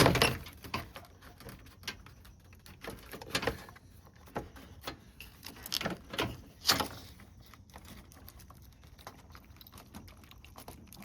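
Irregular knocks, clicks and rattles of hard plastic parts as a radiator fan shroud is handled and pushed into place against the radiator to snap its clips in, the sharpest knock right at the start.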